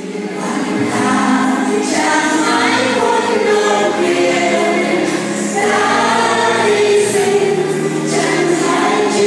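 Choir of women and men singing a slow song together, holding long notes.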